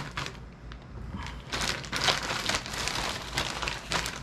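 A package being opened by hand: irregular crinkling and rustling of the wrapping, softer for about the first second, then busier and louder.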